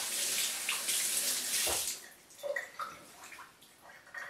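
Kitchen tap running as a cedar branch is rinsed under it, the water splashing steadily until it shuts off about two seconds in. A few faint light knocks follow as the wet branch is handled.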